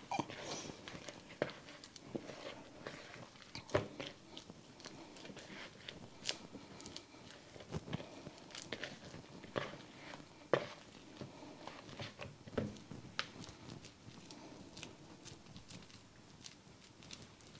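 Bare hands kneading and pressing a soft cream cheese, shredded cheddar and bacon mixture into a cheese ball in a plastic mixing bowl: faint, irregular squishing with scattered small clicks and taps.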